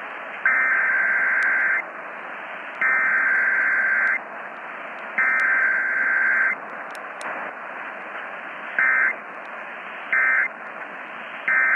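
Emergency Alert System SAME data bursts, a harsh two-tone digital buzz, sent as the Required Weekly Test. Three long header bursts about a second apart are followed by three short end-of-message bursts, all over a steady radio hiss.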